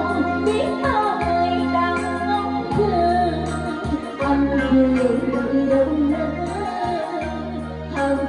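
A woman singing through a microphone and PA over an amplified backing track, her voice gliding and wavering over a steady pulsing bass line.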